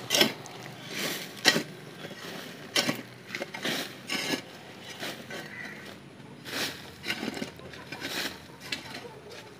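Metal hoe blade scraping and dragging dry, gritty soil into a planting pit, in a series of irregular short strokes about one a second.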